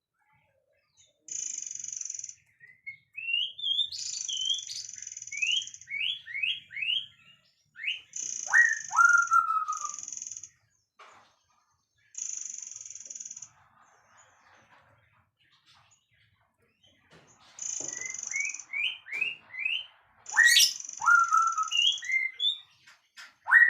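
Songbird singing: repeated high, buzzy trills about a second long alternate with quick runs of rising whistled notes and lower whistles that drop and then hold. There is a pause of a few seconds midway.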